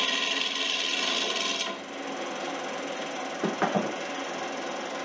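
Turning tool cutting into a spinning Western red cedar loom on a wood lathe, a hissing shaving sound that stops a little under two seconds in. The lathe keeps running with a steady hum, and a few quick knocks come past the middle as a tool is set down in the wooden tool rack.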